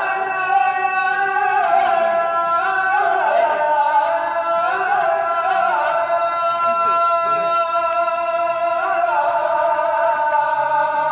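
A muezzin chanting the Friday inner call to prayer (iç ezan), one voice holding long, ornamented notes that shift in pitch a couple of times.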